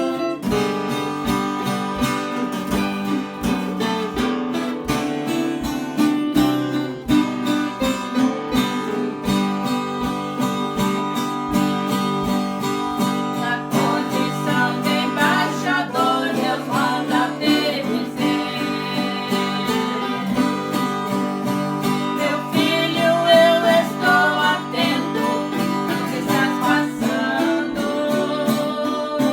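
Acoustic guitar strummed to a steady beat, playing a praise song, with a wavering melody line over it in the middle stretch.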